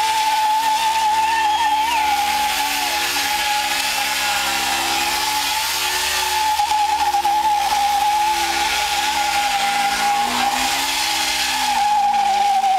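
Motorcycle engine held at high, steady revs, the pitch wavering only slightly, with a hissing noise over it.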